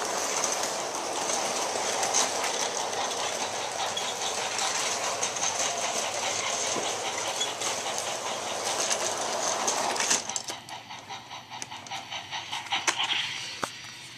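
Bachmann large-scale Thomas the Tank Engine model locomotive running along its track with a steady whir and wheel rattle, stopping suddenly about ten seconds in. After that come a few scattered clicks and knocks.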